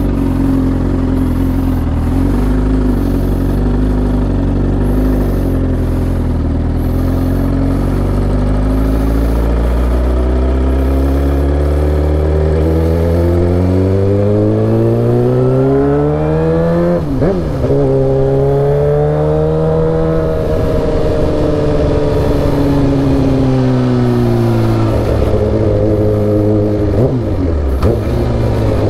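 Suzuki GSX-R1000's inline-four engine under way. Its pitch climbs steadily for several seconds, dips sharply and recovers about two-thirds of the way in, then falls off. Near the end it climbs again with another quick dip.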